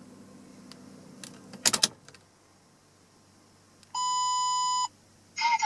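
Toyota Aristo S300's inline-six idling faintly, then a few sharp clicks about two seconds in as the engine goes quiet. About two seconds later a steady electronic beep sounds for roughly a second, and near the end a fast run of beeps starts.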